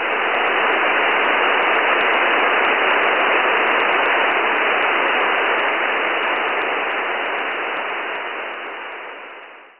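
Steady hiss of an SDR receiver in upper-sideband mode, its 100–2900 Hz filter open on an empty stretch of the QO-100 satellite transponder, with no signal in the passband. It fades out near the end.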